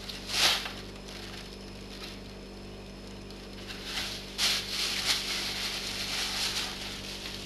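Clear plastic packaging bag rustling and crinkling as a kitten moves against it in a cardboard box: a short burst about half a second in, then a longer stretch of rustling from about four seconds in until near the end.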